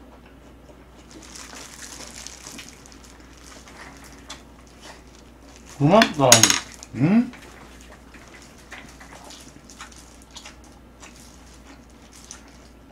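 Person eating with plastic-gloved hands: small clicks of a spoon against dishes and rustling handling of green onion kimchi. About six seconds in, a short voiced sound with a sliding pitch, in two parts.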